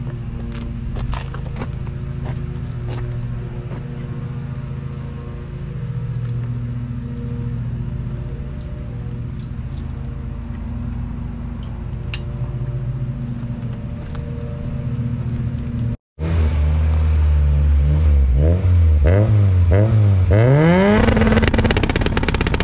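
Background music with a steady beat, then after a sudden cut about three-quarters of the way in, a turbocharged Mazdaspeed6 four-cylinder engine revving hard: several quick rises and falls in revs, then a long climb near the end.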